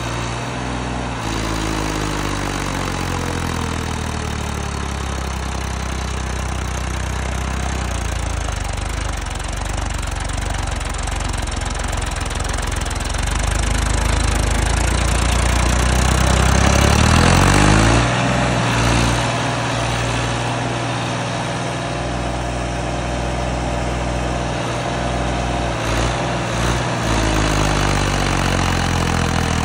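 Massey Ferguson 246 tractor's three-cylinder diesel engine running as it works through loose, dug soil. Its pitch sinks, then climbs to its highest and loudest about 17 seconds in and drops suddenly, rising again near the end.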